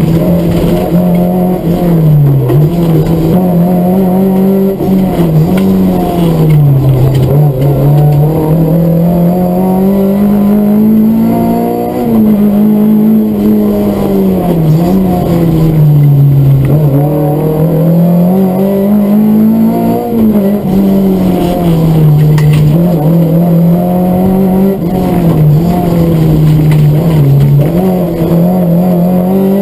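Rally car engine heard from inside the cockpit at full stage pace, its revs climbing and dropping again and again with short sharp dips between climbs, over steady road and tyre noise.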